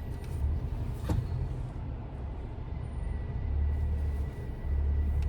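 Car running at low speed, heard from inside the cabin as a steady low rumble, with a single sharp click about a second in.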